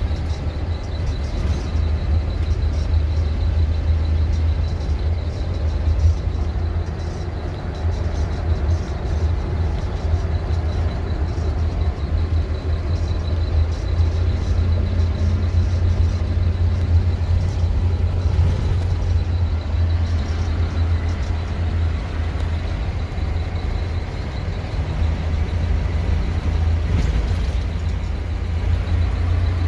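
Inside the cab of a 1986 Fleetwood Southwind motorhome on the move: a steady low rumble of engine and road noise. A faint low hum comes in for a few seconds about halfway through.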